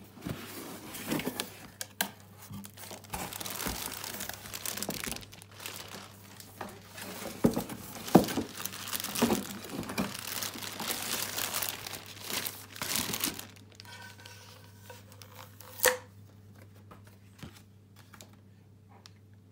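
Clear plastic wrapping crinkling and tearing as it is handled and pulled off a stainless steel frying pan, with a few sharp knocks among the rustling. The crinkling stops about 13 seconds in, and a single sharp click follows a couple of seconds later.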